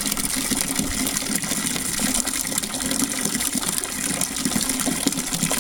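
Water streaming from the spouts of an ice-coated fountain and splashing steadily over the icicles and icy stone.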